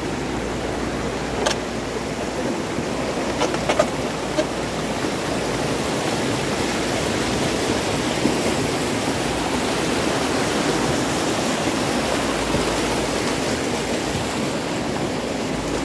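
Fast mountain river running over boulders: a steady rush of whitewater. A few short, sharp knocks stand out about one and a half to four and a half seconds in.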